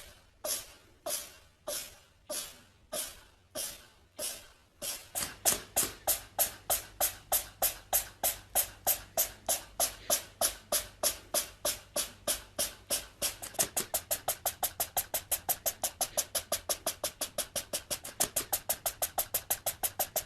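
A cat's sneeze repeated over and over in an even, machine-like rhythm that speeds up in steps: about two a second at first, over three a second from about five seconds in, and about five a second from about thirteen seconds in.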